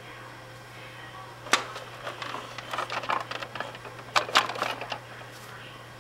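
Irregular hard-plastic clicks and knocks from the Ideal Astro Base toy being handled, with the sharpest knocks about a second and a half in and again about four seconds in.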